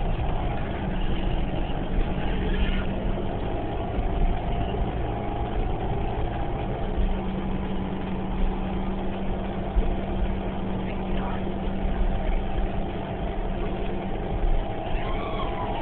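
Inside the cabin of a 2011 New Flyer Xcelsior XDE40 diesel-electric hybrid bus: the drivetrain runs with a steady low hum and steady tones over it.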